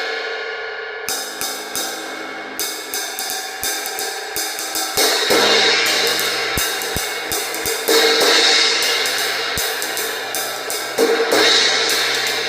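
Heavily unbalanced crash cymbal struck over and over with light, quick hits that let it ring on. Three harder crashes come about 5, 8 and 11 seconds in.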